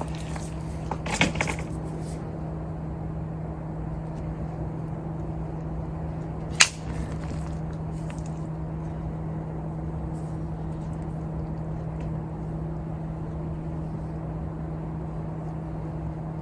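A steady low machine hum, with a few knocks near the start and one sharp clack about six and a half seconds in.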